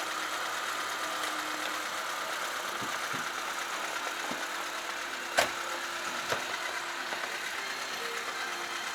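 Car engine running steadily, with a sharp click about five and a half seconds in and a smaller one a second later.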